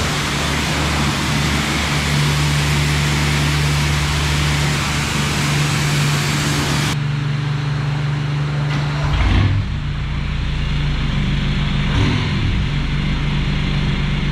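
Car engine running with a steady low hum under a hiss. The hiss cuts off suddenly about seven seconds in, and a short low rumble follows a couple of seconds later while the hum carries on.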